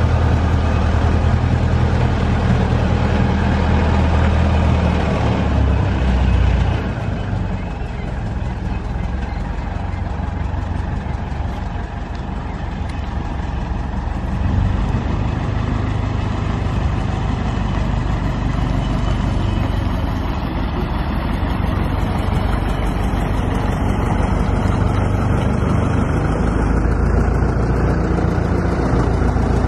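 Engine of a self-propelled boat lift running steadily as it drives with a boat hanging in its slings: a continuous low drone that drops somewhat about seven seconds in and builds again about halfway through.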